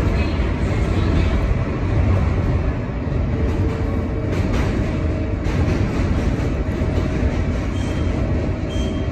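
New York City R142A subway car running along the track, heard from inside: a steady low rumble of wheels and running gear, with a few faint, brief squeals from the wheels.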